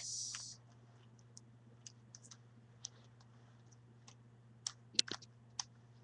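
Plastic Rubik's cube being turned by bare feet, its layers clicking irregularly. The clicks are scattered and soft, with a quick run of louder ones about five seconds in.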